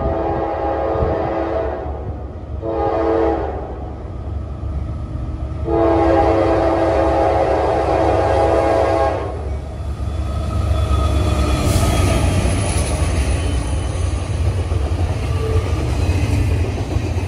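Norfolk Southern freight locomotive's multi-chime air horn sounding three blasts, long, short, then long, as the train approaches. The horn then gives way, about ten seconds in, to the steady rumble and wheel clatter of the locomotive and double-stack intermodal cars passing close by.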